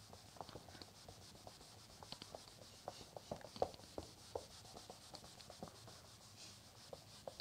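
Faint rubbing of a cloth wiping a whiteboard clean, with scattered light taps and short scrapes against the board.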